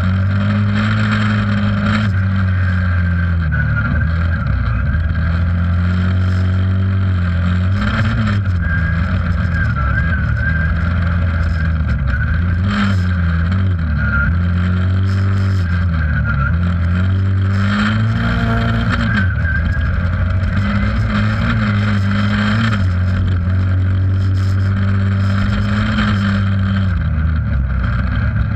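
Race car engine heard from inside the stripped, caged cabin, running hard on a dirt track. The revs climb and drop every few seconds through corners and gear changes, with occasional knocks from the body.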